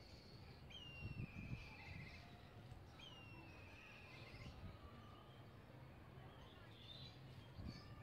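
Black kites calling: two whinnying calls about two seconds apart, each a high whistle that drops and runs into a quavering trill, with fainter calls later on. A few low, muffled bumps about a second in.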